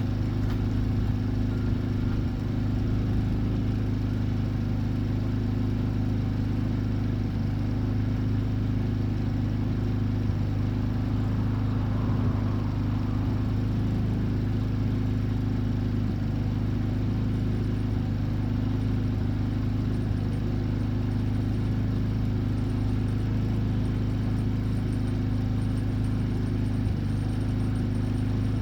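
Steady low hum of running shop machinery, a deep even drone that holds unchanged throughout.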